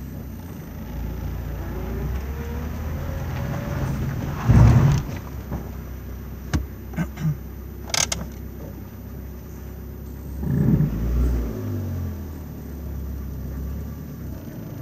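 Car engine running, heard inside the cabin while the car drives slowly. It rises a little in pitch as it picks up speed, about two to three seconds in. A brief louder knock-like noise comes about four and a half seconds in, then a few sharp clicks, and the engine is louder again around eleven seconds.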